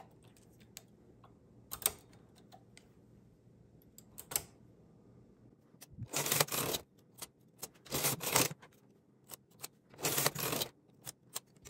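Singer 328 knitting machine carriage pushed across the needle bed three times, about every two seconds, each pass a clattering run lasting under a second, as rows are knitted after a stitch decrease. Before that, a few light clicks of the stitch-transfer tool and needles.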